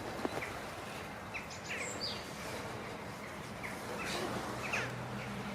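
Small birds chirping now and then, a dozen or so short quick chirps scattered over a steady outdoor background hiss.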